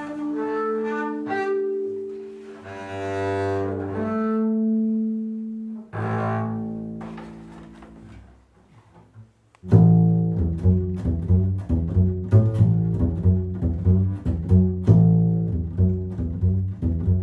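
Double bass played with a bow: long held notes, often two or three sounding together, that fade out about eight seconds in. After a short pause the bass comes back plucked, in a steady rhythmic line of short low notes.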